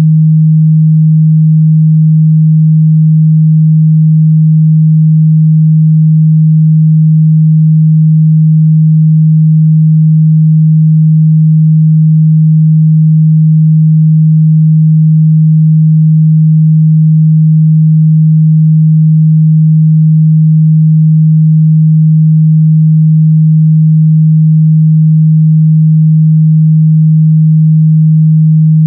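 A pure 157 Hz sine-wave test tone, a steady low hum held at one pitch and one level without a break.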